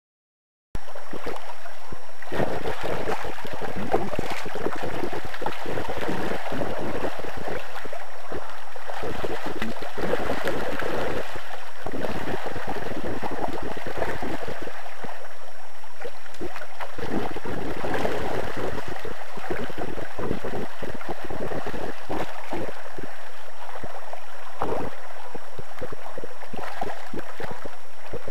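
River water rushing steadily over shallow stony riffles, starting abruptly just under a second in after a moment of silence.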